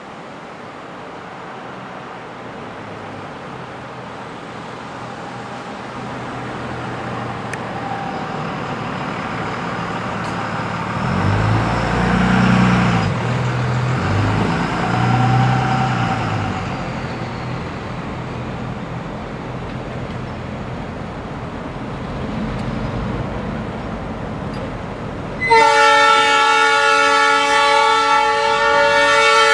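A group of diesel-electric locomotives pulling out together: the engines grow steadily louder as they approach, and their deep engine note swells and wavers for several seconds in the middle as they throttle up. Near the end the lead locomotive's air horn starts suddenly, a chord of several tones held steady.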